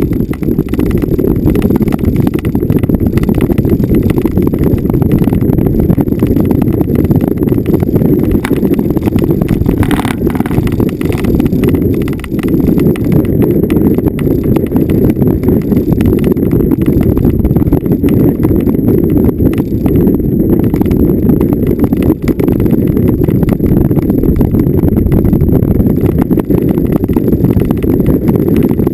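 Vehicle driving over rough, bumpy off-road ground: a loud, continuous low rumble full of rapid, irregular jolts and rattles.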